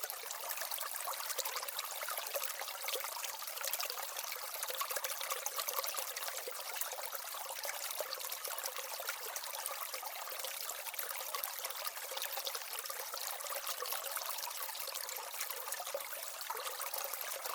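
Water trickling and splashing steadily, a fine crackling hiss with no low rumble.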